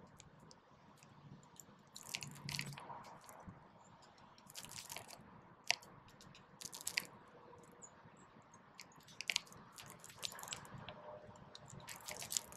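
Sparrows pecking and cracking seed on snow-covered ground close by, in bursts of quick, sharp clicks and crunches a second or two apart.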